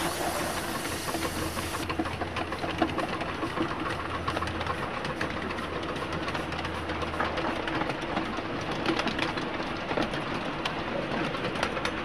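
Miniature railway train running along the track, wheels giving a stream of sharp clicks over a steady mechanical running noise, with a low hum that drops out about two-thirds of the way through.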